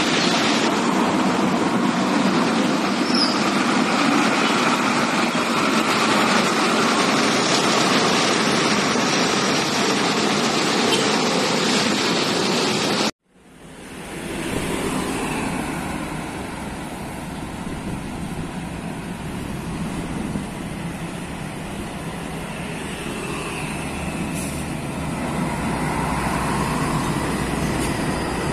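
Highway traffic noise from passing vehicles. It cuts out abruptly about thirteen seconds in, then carries on at a lower, steady level.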